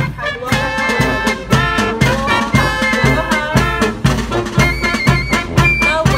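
Marching band playing: brass instruments hold chords over a steady bass drum beat of about two strokes a second.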